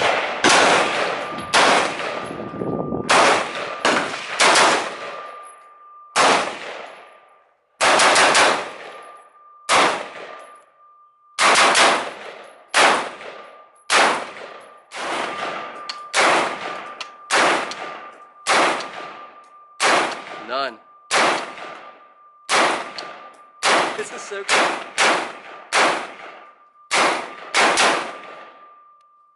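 Noveske Infidel Gen 4 AR-15 rifle in 5.56 with a 13.7-inch barrel and KX3 flash suppressor, fired semi-automatically: a string of about thirty sharp shots at roughly one to two a second, some in quick pairs, each with a short echo.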